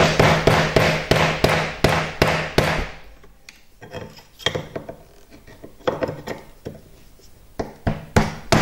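A chisel being tapped against a guitar nut to knock it off the neck, about four quick taps a second. After about three seconds the taps turn softer and sparser, with two sharper knocks near the end.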